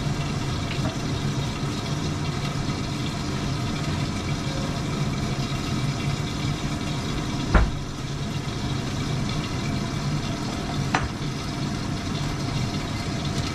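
Chicken wings sizzling in oil in a covered frying pan over a low gas flame: a steady hiss with a low hum underneath. A sharp knock about seven and a half seconds in, and a lighter click a few seconds later.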